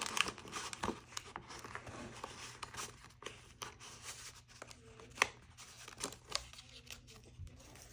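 Paper rustling and scattered soft clicks as the thick pages of a handmade junk journal are turned and handled, with one sharper tap about five seconds in.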